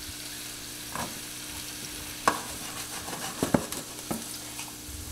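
Asparagus sizzling in a frying pan of hot butter, garlic and lemon, being stirred, with a few sharp clicks against the pan about a second apart.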